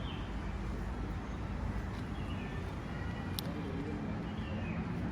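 Steady outdoor background noise, mostly a low rumble like distant traffic, with a few faint short chirps and a single sharp click about three and a half seconds in.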